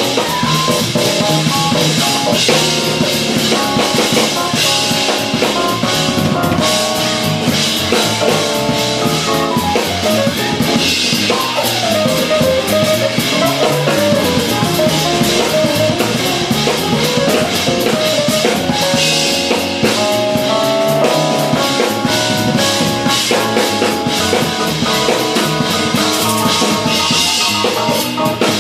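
Live jazz fusion band playing: drum kit, electric bass, electric guitar and keyboards, with a quick, winding melodic line on top.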